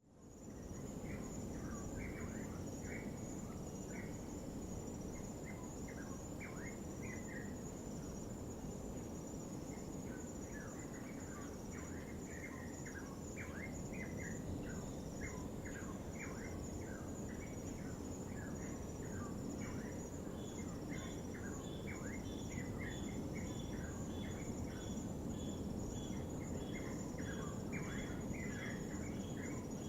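Night insects trilling steadily in a high, pulsing chorus, over a low, even wash of distant surf, with many short, falling bird chirps. From about twenty seconds in, a regular high note repeats a little faster than once a second.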